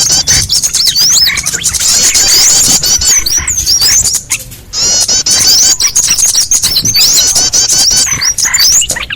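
A bird-lure recording of many small birds chirping and twittering together, with rapid, overlapping high calls and a short break about four seconds in. This is a lure call ('pikat') meant to draw small birds in.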